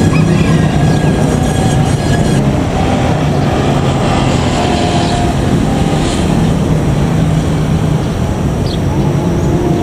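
Diesel train engine running, a steady low hum under a loud rumble.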